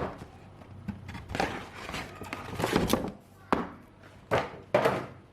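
Handling noise: a string of sharp knocks and thunks with short rustling swishes between them, about eight in all, typical of a boxed item and its packaging being handled.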